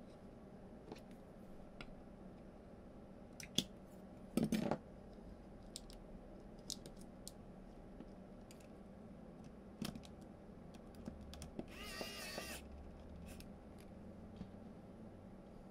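Small parts and tools being handled on a workbench: scattered light clicks and taps, a brief louder scrape about four and a half seconds in, and a short buzzing tone near the end.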